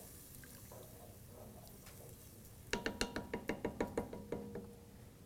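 A wooden spoon stirring soup in a stainless steel pot, then knocked on the pot's rim in a quick run of about ten taps, the pot ringing with each knock.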